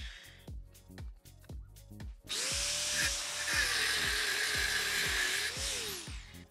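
Angle grinder with a thin cut-off disc spinning up about two seconds in and cutting through a brake line clamped in a vise. Its motor note drops under the load of the cut, then rises and winds down near the end once the tube is cut through. Background music with a steady beat plays throughout.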